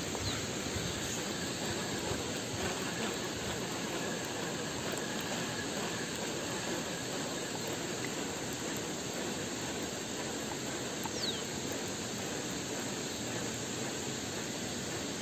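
Steady, even rushing hiss of outdoor background noise, unchanging throughout, with a faint short falling chirp about eleven seconds in.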